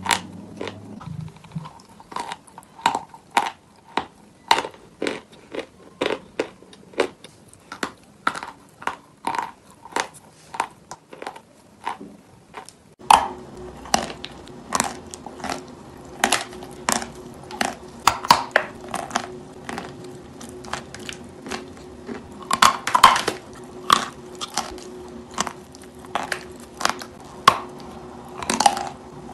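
Close-up crunching and chewing of pieces of chalk coated in a wet paste, a crisp crunch about twice a second. About halfway through, a faint steady hum comes in underneath and the crunches grow louder and come in clusters.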